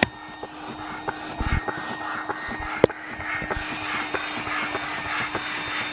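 Small electric air pump running steadily with a hum and air hiss as it inflates an inflatable boat through a hose, working only weakly and slowly. A sharp click about three seconds in.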